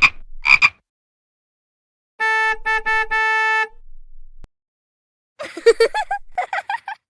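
A run of sound effects: two short sharp sounds, then a car horn honking in four quick toots, then a rapid warbling, croak-like call.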